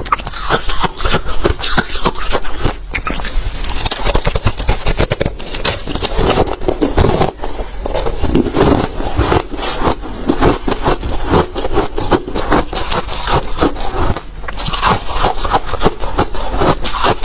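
Close-up chewing of hard refrozen crushed ice: a dense, continuous run of loud crunches and cracks as the ice is bitten and ground between the teeth.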